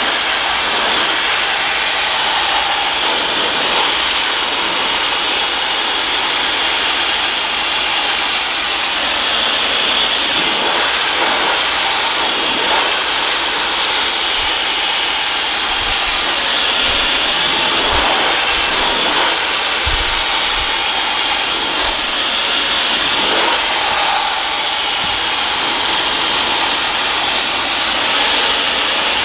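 Dyson Supersonic hair dryer running, a loud, steady rush of air as it blow-dries hair, with a few low thumps around the middle.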